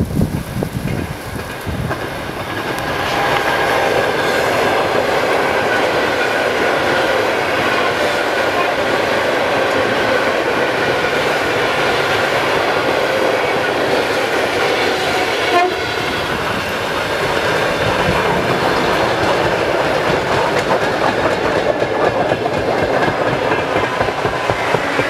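ЭД4М electric commuter train running past on the rails. The rumble and rattle of its wheels build up a few seconds in and then hold steady, with a faint steady whine over them.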